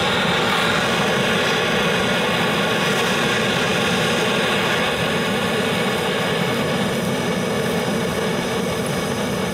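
Handheld gas torch burning steadily with a continuous hiss, its flame held into a chimney starter full of lump charcoal to light it.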